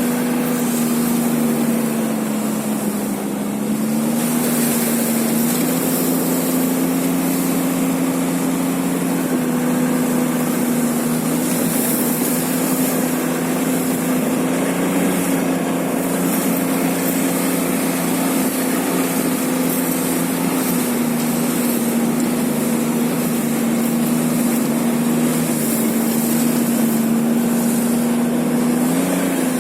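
A small engine running steadily at cruising speed under a broad rushing hiss. The engine's pitch sags briefly about three seconds in and rises slightly near the end.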